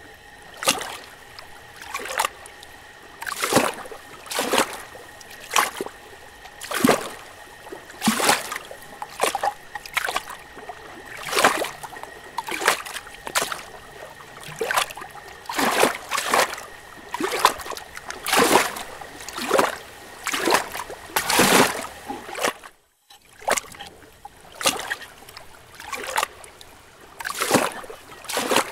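Water sloshing and splashing against a 360 camera's waterproof housing at the surface of a bubbling hot tub, in repeated sharp bursts a little more than once a second over a faint steady whine. The sound drops out briefly once, late on.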